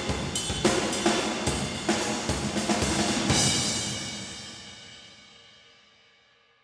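Schagerl Raw Brass drum kit (brass-shelled 20x18 bass drum, 12x8 and 16x14 toms, 14x6.5 Antares snare) played in a groove with cymbals, ending a little over three seconds in on a final hit that rings out and fades away over about three seconds, with the reverberation of a big open hall.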